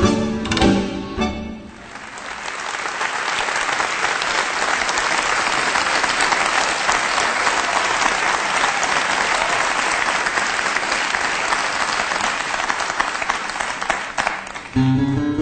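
Audience applauding for about twelve seconds after a bandoneón tango passage ends about two seconds in. Near the end the applause gives way to music starting again, with plucked strings.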